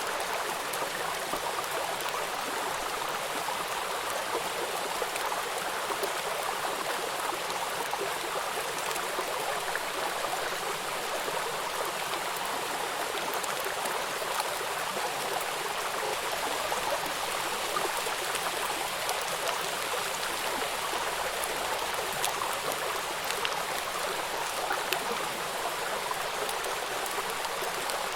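Steady rainfall: a dense even hiss of rain with many small drop patters mixed in.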